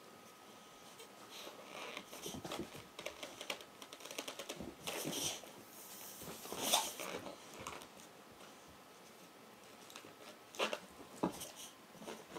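Crackles and rubbery squeaks of a latex balloon being blown up and handled, mixed with the movement of a boxer dog jumping and nipping at it. A few sharp knocks come about two thirds of the way through, and there is no pop.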